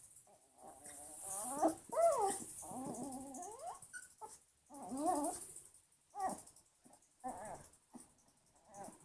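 Puppy whining and whimpering in a string of short, high-pitched calls that rise and fall in pitch, the loudest about two and five seconds in, then shorter ones near the end.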